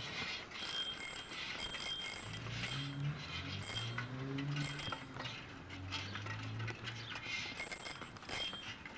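Footsteps walking on pavement, a stroke every half second or so, each with a faint high squeak. A low wavering drone sounds in the middle few seconds.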